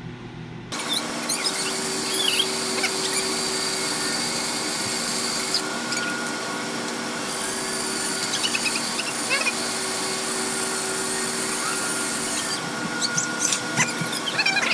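A power tool starts just under a second in and then runs steadily, with a constant whine.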